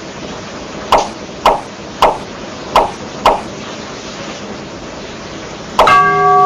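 Five sharp knocks in an uneven row, then a louder strike that rings on with a bell-like tone for about a second and a half.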